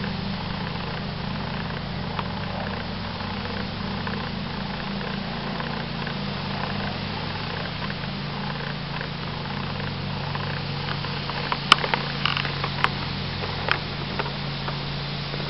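A steady low hum under a constant hiss, with a few sharp clicks about twelve to fourteen seconds in.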